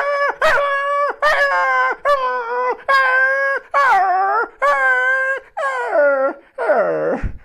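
A man imitating dogs with his voice: a string of drawn-out whining howls, each under a second and mostly held on one pitch, the last two sliding down in pitch.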